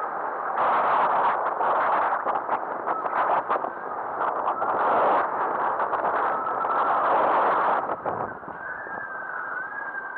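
Wind buffeting the microphone and water rushing along the hull of a small trailer-sailer under sail in a breeze. The noise eases about eight seconds in, leaving a faint high whistle.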